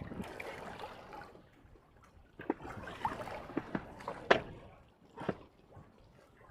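Water sloshing and lapping against a small boat's hull, with a few sharp knocks, the loudest about four seconds in.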